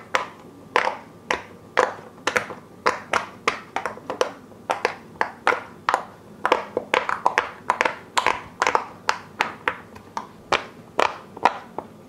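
Bubbles of silicone push-pop (pop it) fidget toys being pressed by fingers, a quick irregular run of sharp pops, about three a second.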